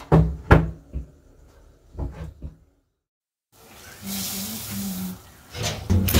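A few sharp knocks and clatter of kitchen handling; then, after a brief cut, dry rice poured into a pot of boiling vegetable broth, a steady hiss of grains falling into the simmering water.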